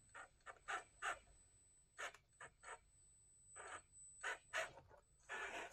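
Faint, scattered short scrapes and ticks of a micro RC crawler's rubber tyres and chassis working slowly over rock and gravel.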